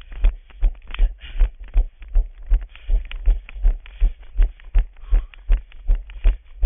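A runner's footsteps on an asphalt path, heard through a body-worn camera: a regular low thud with a short scuff at each stride, about two and a half a second.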